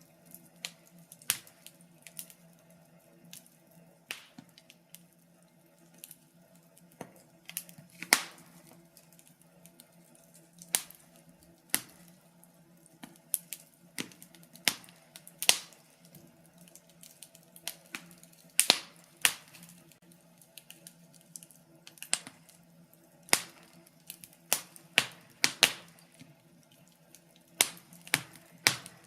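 Wood fire crackling in a fireplace: irregular sharp pops and snaps from the burning logs, a dozen or so much louder than the rest, over a steady low hum.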